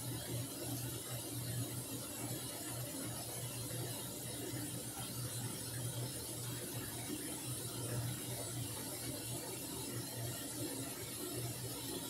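Samsung washing machine running: a steady low motor hum under an even hiss, with slight swells in the hum.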